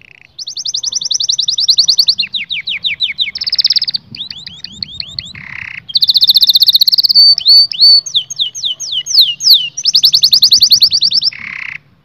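Domestic canary singing a long, loud song of fast trills and rolls, with runs of quick downward-sweeping notes and a couple of short buzzy notes between phrases. The song starts just under half a second in.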